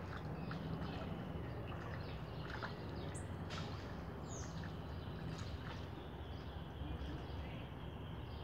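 Steady low outdoor background rumble with a few brief high bird chirps, one gliding down in pitch, about three and four seconds in.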